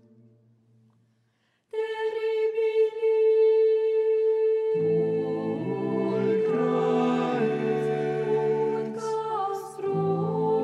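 A held sung chord fades out, then after a short silence an a cappella ensemble of women's voices begins: a single sustained note from about two seconds in, joined by further voices in slowly shifting harmony about three seconds later.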